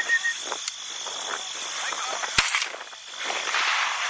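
A single shotgun shot about two and a half seconds in, from a dove hunt, with a steady high-pitched hum in the background.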